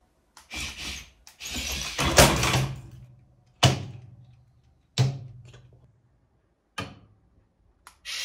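Plastic toy remote-control excavator scraping and rattling for a couple of seconds, then knocking hard twice, each knock followed by a short low ringing, and a lighter click a little later.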